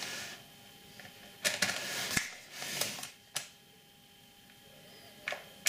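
Kitchen handling sounds from a spoon at the cake tin: a few sharp clicks and short scraping or rustling sounds with quiet gaps between them.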